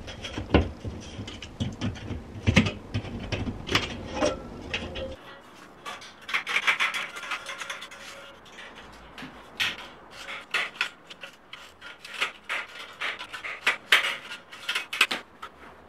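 Light-gauge galvanized steel drywall profiles (F47 channel) being handled and fitted: repeated metallic clicks, clanks and scraping of sheet metal. A low hum runs under the first five seconds.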